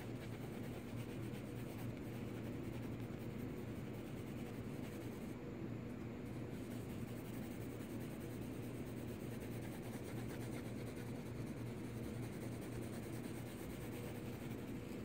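Graphite pencil scratching on paper in quick, continuous scribbling strokes as tone is hatched in, over a low steady hum.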